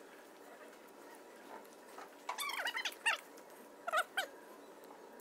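Short, wavering, high-pitched animal calls, a cluster about two seconds in and another brief one about four seconds in, over faint room tone.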